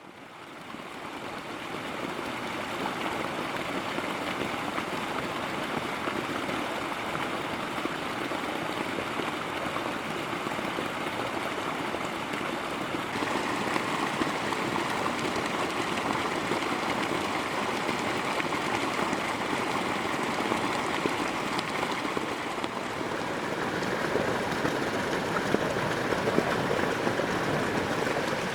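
Steady rushing of flowing water, fading in over the first couple of seconds.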